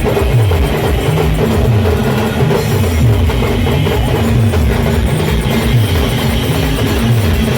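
Loud band music with a heavy drum beat and a deep bass that slides down in pitch again and again.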